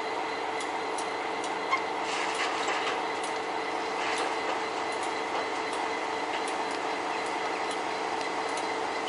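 Heavy engineering machinery running at a railway track renewal: a steady drone with a constant whine through it, and a few faint clanks about two and four seconds in.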